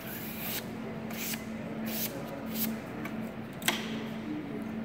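Handling noises from setting up a small dust-explosion demonstration tube: several short rustling, scraping bursts and one sharp click about three-quarters of the way through as the top goes on the tube, over a steady low hum.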